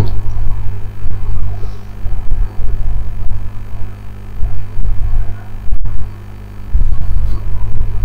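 Loud low hum with an uneven throb and no speech, like mains hum picked up by the recording.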